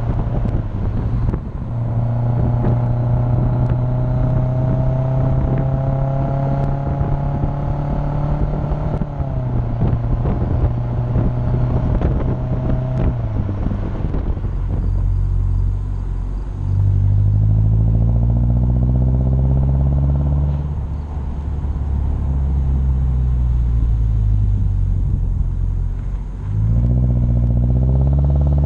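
Subaru Crosstrek's flat-four boxer engine heard through a Nameless Performance 5-inch muffler while driving. A steady exhaust drone at cruise creeps slowly up in pitch, then dips about a third of the way in. From about halfway the note climbs under acceleration, falls back as the throttle is eased, and climbs again near the end.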